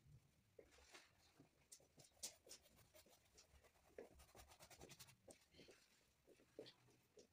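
Faint paintbrush strokes on a painting board: quick short scratchy dabs and scrapes, coming in rapid runs.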